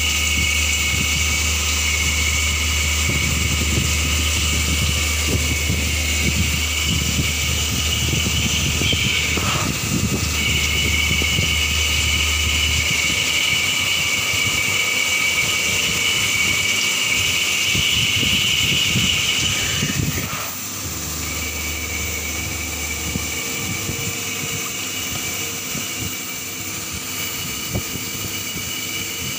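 Double-spindle CNC mill-turn machine running, with a steady high whine that breaks off briefly about a third of the way in and again about two-thirds in, and a low hum in the first part. After the second break the sound is a little quieter.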